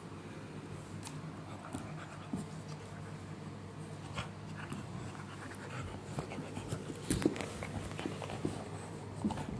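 Rottweiler puppies panting and mouthing at a hand during play, with scattered small clicks and a louder knock about seven seconds in.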